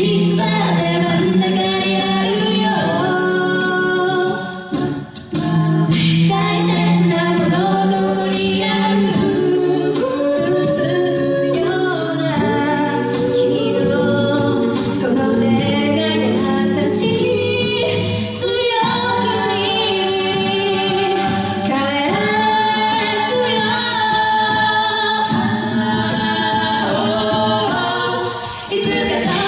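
Mixed a cappella group of six singing a J-pop song live through microphones, a woman singing lead over close backing harmonies from the other voices, with vocal percussion keeping a steady beat.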